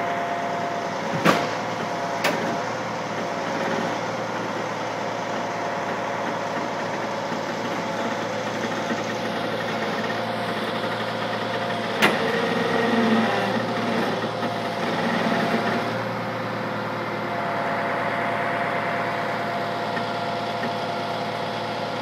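Heavy truck engine idling steadily. A few sharp knocks cut through it: about a second in, again a second later, and once near the middle.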